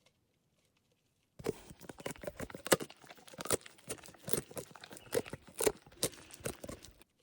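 Close, irregular crunching and crackling, many sharp cracks in quick succession, starting abruptly about a second and a half in and stopping just before the end.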